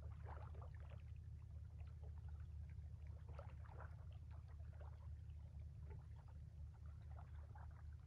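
Small waves lapping and splashing softly at the sea's edge in irregular little clusters, over a steady low rumble.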